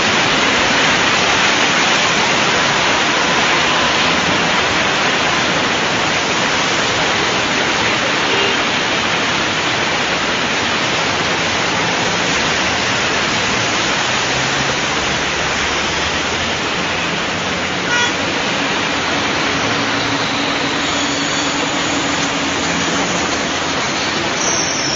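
Loud, steady rushing of floodwater and rain over a flooded street, with vehicle engines running underneath.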